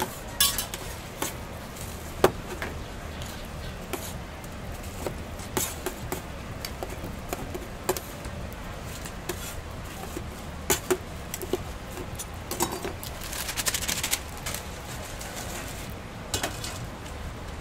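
A metal spatula and tongs knocking and scraping on a steel griddle as a crisp pancake is cut into pieces: irregular sharp clicks over a steady low hum. A short paper rustle comes about three-quarters of the way through.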